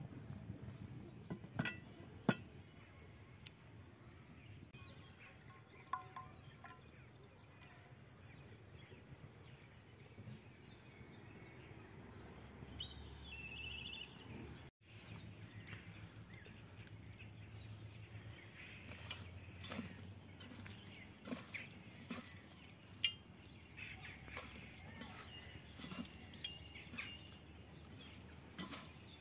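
Faint outdoor ambience with birds chirping now and then, and a few scattered knocks and clicks.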